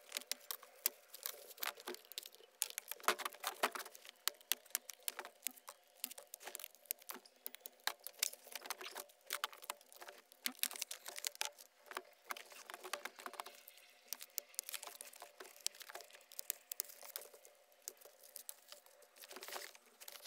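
Foam packing and plastic wrap being pulled off a new e-bike, rustling and crinkling in a string of irregular sharp crackles.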